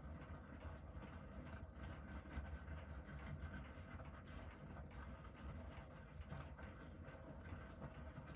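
Quiet room tone with a steady low hum and faint, rapid ticking.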